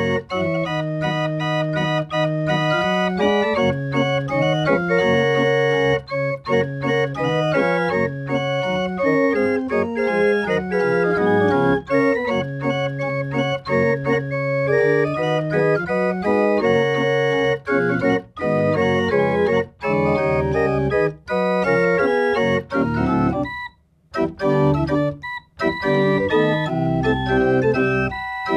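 Home-built continuo chest organ with wooden pipes, its keys worked by electromagnets under MIDI control, playing a multi-voice piece of held chords and moving lines. The music stops briefly a couple of times near the end.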